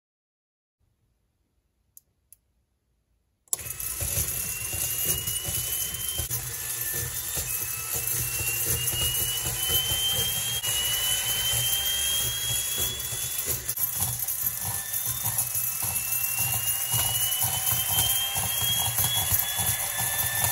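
Electric miniature turbofan engine model starting up: after two faint clicks, it comes on suddenly about three and a half seconds in with a steady hissing rush and hum, over which a whine climbs in pitch again and again.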